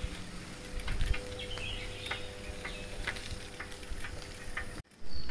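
Outdoor morning ambience: birds chirping in short scattered calls over a low rumble and a faint steady hum. The sound cuts out briefly near the end.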